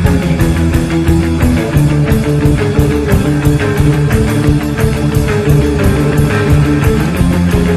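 Loud rock music with distorted electric guitar and a steady drum beat.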